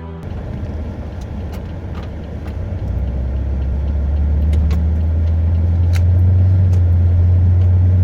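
Low drone of a car's engine and road noise heard inside the cabin while driving, growing louder about three seconds in as the car picks up speed, then holding steady. A few faint clicks sound over it.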